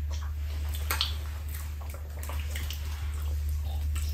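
Wet chewing, lip-smacking and small mouth clicks of people eating soft baked sweet potatoes, over a steady low hum.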